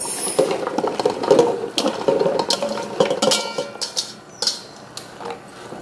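Chopped okra, eggplant and squash tumbling from a metal mixing bowl into a large metal stockpot, the pieces clattering in. The bowl knocks and scrapes against the pot, with a brief metallic ring a little after three seconds in.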